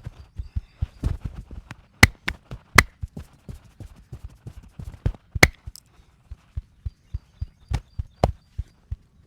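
Percussive stick massage on the body: quick dull thumps, about three or four a second, broken by a handful of sharp cracks as the wooden sticks strike.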